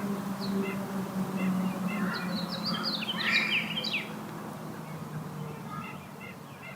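Distant outdoor warning sirens winding down at the end of a three-minute alert signal: a low drone slowly sinks and fades away. Birds chirp over it about two to four seconds in.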